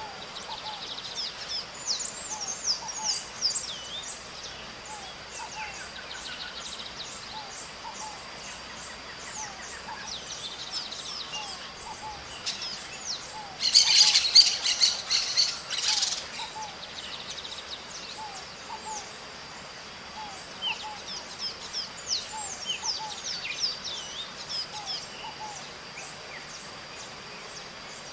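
Maritacas (Pionus parrots) calling: many short chirps repeated through the stretch, with a loud burst of harsh calls for about two seconds midway. A steady high tone runs underneath.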